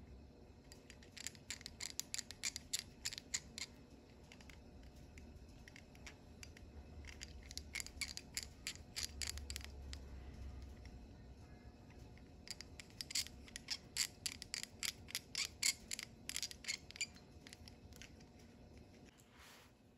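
Quick runs of small sharp clicks as a fine drill bit in a hand pin vise is twisted back and forth into a tiny plastic part, cutting a hinge hole. The clicks come in three bursts of a few seconds each.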